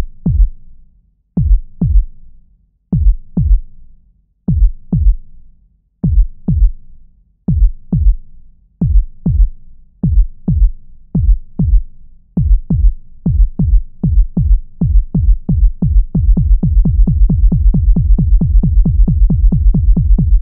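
Heartbeat sound effect: low thumps in lub-dub pairs, slow at first at about one pair every one and a half seconds, then speeding up steadily until the beats run together fast and even for the last few seconds. It cuts off suddenly.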